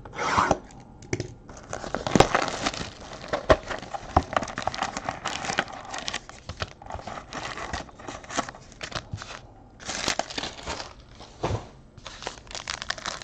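Plastic shrink-wrap crinkling and tearing as hands strip a trading-card box and handle its foil packs: irregular crackling with many sharp clicks.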